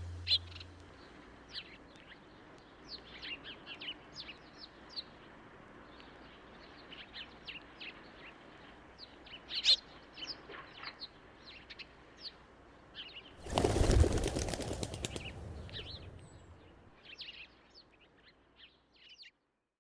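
Small birds chirping in short, high calls throughout, with a burst of rapid wing flapping about two-thirds of the way in that lasts a second or two.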